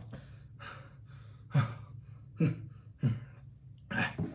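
A man with a chesty cough taking short, sharp breaths, about five in four seconds, over a steady low hum.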